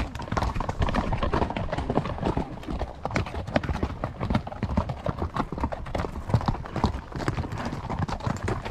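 Horses' hooves clip-clopping at a walk on the trail: a continuous run of irregular hoof strikes, several a second.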